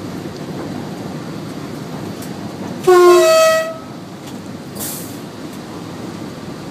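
A train's two-tone horn sounds once, a short low note jumping to a longer higher note, heard from inside the cab over the steady rumble of the train running on the rails.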